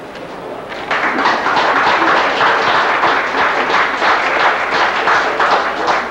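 Audience applauding, breaking out about a second in and running on as a dense, irregular patter of hand claps.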